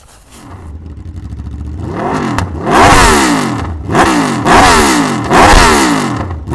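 2022 Aprilia RSV4 1100's V4 engine through an SC-Project GP-22 titanium exhaust, accelerating hard through the gears. It grows louder as it comes closer, then rises in pitch and drops back at each upshift, about four times.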